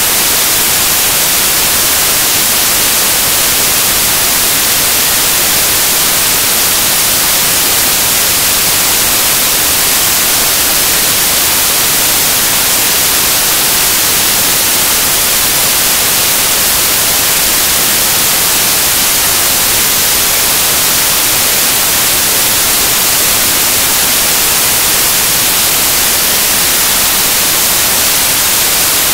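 Loud, steady static hiss like white noise, strongest in the high end, with no voices or other sounds heard through it.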